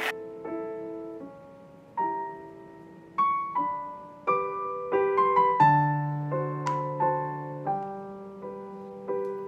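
Soft piano background music: a slow melody of single notes and chords, each note struck and fading, with a low bass note held for about two seconds near the middle.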